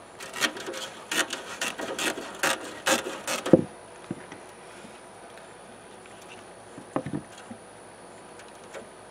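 Tin snips cutting screen mesh along the edge of a wooden nuc box: about a dozen quick, crisp snips over three seconds, ending with a knock. After that, only faint handling sounds.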